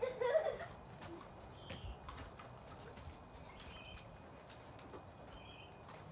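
A child's brief excited shout at the very start, then quiet outdoor background with a few short, high bird chirps spaced a second or two apart.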